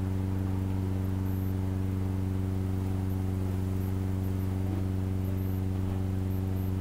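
Steady low electrical hum from the microphone and sound system, a constant buzz with evenly spaced overtones.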